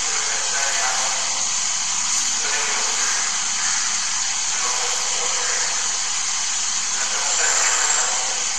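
Steady, loud hiss with a man's voice faintly beneath it.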